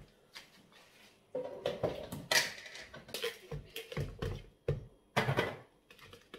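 Washed rice being tipped from a cup into a plastic microwave rice cooker: a short rush of grains about two and a half seconds in, amid a string of knocks and taps of plastic kitchenware being handled.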